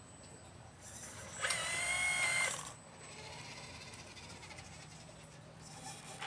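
Small electric motor of a 1/12-scale Liebherr 954 model excavator whining briefly. A high-pitched whine builds about a second in, holds for just over a second, then cuts off.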